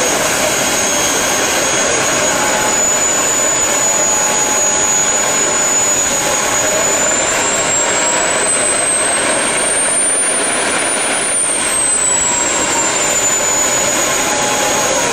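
Small jet turbine engine on a go-kart running loudly, a rushing roar with a high whine that climbs in pitch about halfway through and then settles back down.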